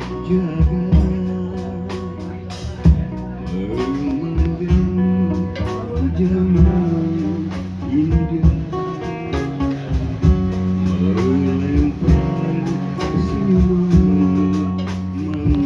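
Live street-band music: a man singing a melodious line into a microphone over amplified guitars, with a steady beat.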